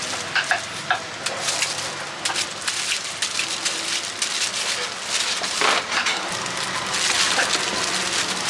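Crinkle-cut knife slicing firm guava on a wooden board, with crisp cuts and small clicks, and plastic glove and bag crinkling as the slices are handled. Near the end a plastic bag rustles louder as the cut fruit is packed into it.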